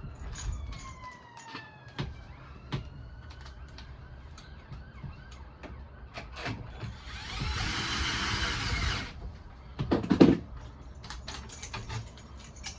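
New euro cylinder lock being fitted into a door lock case: metal clicks, scrapes and squeaky sliding. Near the middle a power screwdriver whirs for about two seconds, driving in the retaining screw, and a cluster of sharp knocks follows.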